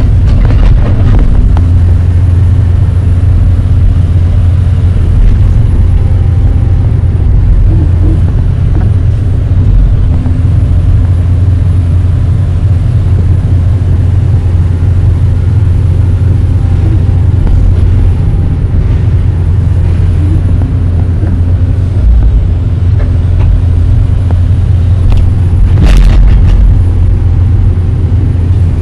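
Hydraulic excavator's diesel engine running steadily under working load, heard from inside the cab as a loud, constant low drone. A single sharp clank sounds near the end.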